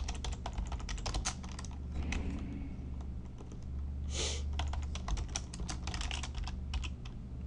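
Typing on a computer keyboard: quick, irregular key clicks as a terminal command is entered.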